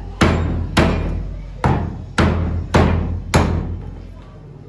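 Heavy butcher's cleaver chopping chicken on a wooden log chopping block: six sharp chops, mostly about half a second apart with one longer pause, each dying away quickly. The chopping stops a little over a second before the end.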